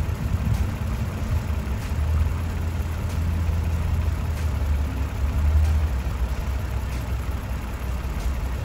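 Toyota Sienna's 3.5-litre V6 idling steadily as it warms up while air is bled from the cooling system after a radiator replacement.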